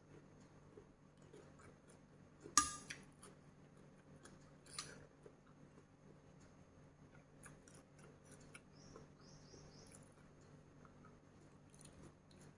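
A metal spoon clinks once, sharply, against a glass bowl of dipping sauce about two and a half seconds in, with a brief ring; a softer clink follows about two seconds later.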